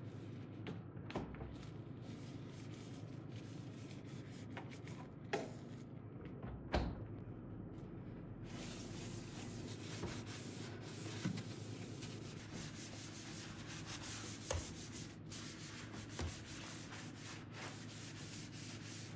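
A cloth wiping down the inside of a refrigerator in steady rubbing strokes, cleaning off crumbs with degreaser. A handful of light knocks come between the strokes.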